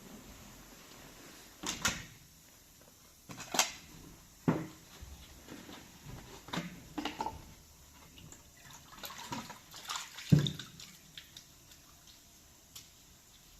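Irregular knocks and clinks of household objects being handled, about a dozen spread unevenly, the loudest about ten seconds in.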